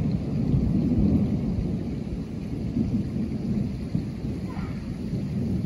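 Thunder rumbling in a long roll that slowly fades.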